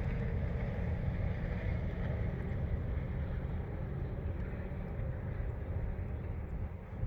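Steady low rumble of wind on the microphone, with no gunshot in this stretch.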